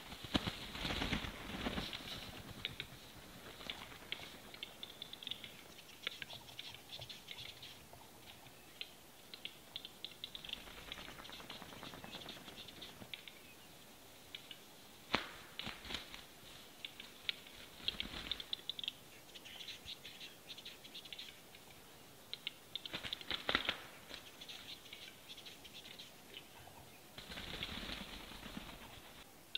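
Western capercaillie males at a lek: runs of dry, sharp clicks from their display song, broken by bursts of heavy wing flapping as males fight. The loudest flapping comes right at the start, with more bursts around the middle and near the end.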